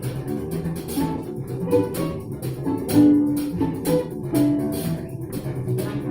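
Live instrumental music from an ensemble, with plucked notes over a pulsing low part.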